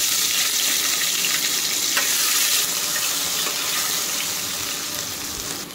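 Grated ginger, dry red chilli, bay leaves and cumin sizzling in hot mustard oil in a steel kadai, stirred with a steel spatula. There is a single click about two seconds in, and the sizzle eases a little near the end.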